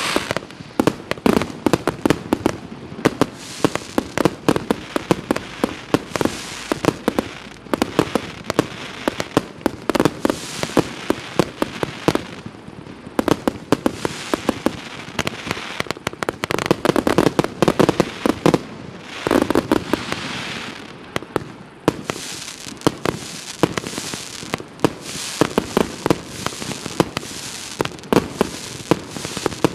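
102-shot 1-inch firework cake firing: a rapid series of shots and bursting shells, several a second, with denser, louder volleys in places.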